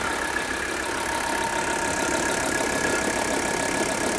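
Mercedes W123 300 turbo diesel's five-cylinder engine idling steadily, with a steady high whine, while it runs on diesel purge cleaner fed through the injection pump.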